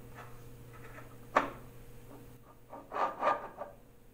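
Steel T-nut locator being slid by hand along the T-slot of a CNC mill table, metal scraping on metal, with one sharp click about a second and a half in and a short run of metal clacks near three seconds in.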